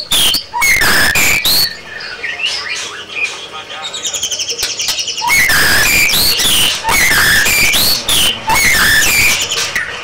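White-rumped shama singing: loud, varied whistled phrases of notes sliding up and down, with a quick run of rapid notes about four seconds in.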